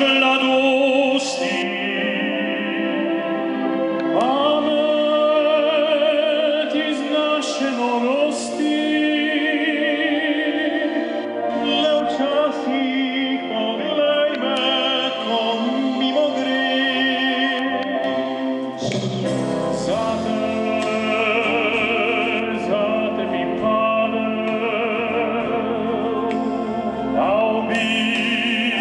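Male vocal trio singing live through microphones in an operatic style, with vibrato on long held notes.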